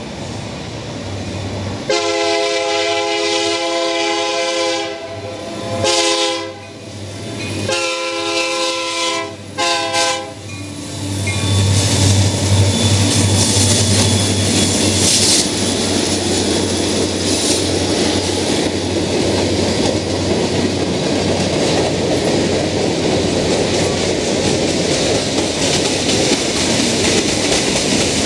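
Lake State Railway freight train's diesel locomotive air horn sounding a series of blasts for the road crossing, the first long, then shorter ones, stopping about ten seconds in. The diesel locomotives then rumble past, followed by the steady clatter of freight car wheels over the rails.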